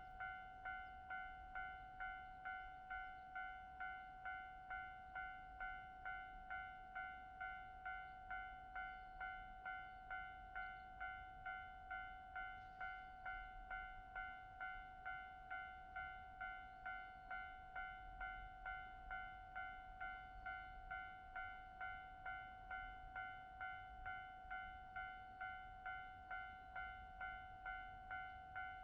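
Japanese railway level-crossing alarm ringing with its electronic bell, one even ding about every two-thirds of a second, warning that a train is approaching.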